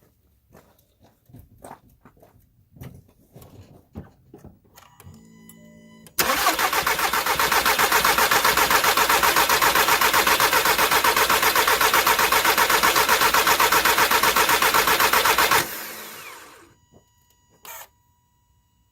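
A 2004 VW Jetta TDI's 1.9-litre four-cylinder turbodiesel being cranked by the starter for about nine seconds with a fast, even pulse, then the starter is released and the engine spins down without catching. This is the no-start fault the car has.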